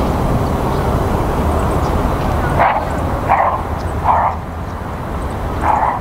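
Four short animal calls or barks, spaced unevenly over a few seconds, over a steady low rumble.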